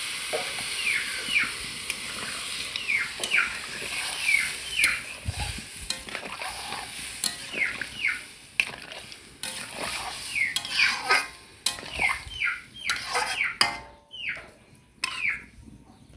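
Cauliflower and potato curry sizzling in a hot metal pan just after water is added, with a spatula stirring and clicking against the pan; the hiss thins out over the first few seconds. Over it, a bird gives many short chirps that fall in pitch.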